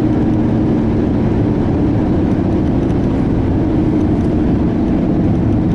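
Steady engine and road noise inside a moving vehicle's cabin, a constant low rumble with a faint hum.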